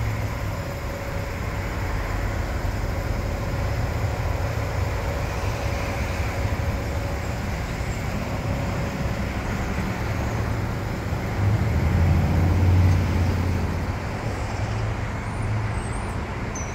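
Steady road-traffic rumble, swelling louder for a couple of seconds about twelve seconds in as a vehicle goes by.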